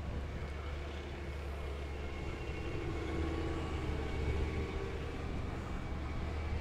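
Tracked armoured vehicles driving by on a muddy track, a Leopard 1 tank nearest: a steady low engine drone over a haze of running noise, growing a little louder around the middle.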